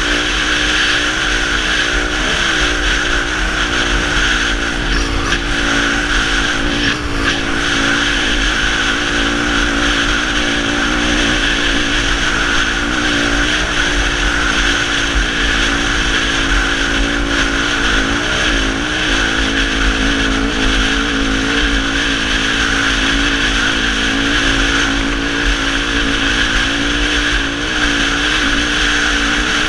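A 2006 Suzuki RM-Z250 dirt bike's single-cylinder four-stroke engine running steadily under way, its pitch rising and dipping slightly as the throttle is worked, with wind buffeting the microphone.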